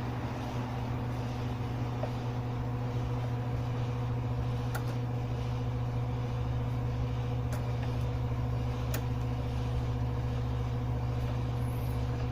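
Steady low machine hum with a constant pitch, and a few faint clicks over it.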